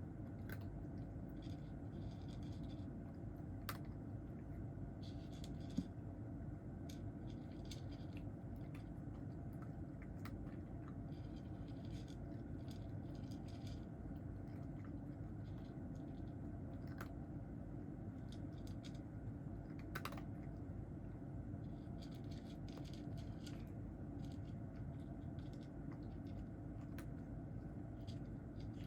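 Cat chewing dry kibble, with short clusters of crisp crunching clicks every second or two over a steady low hum.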